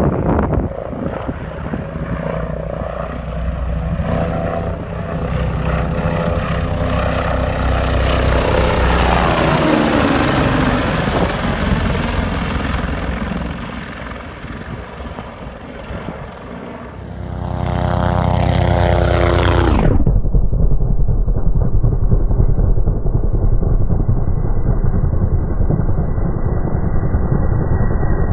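AgustaWestland A109 twin-turbine helicopters flying past low, rotor beat and turbine whine sliding down in pitch as each goes by, twice. About two-thirds of the way through the sound changes abruptly to a steady, duller drone of a helicopter passing close.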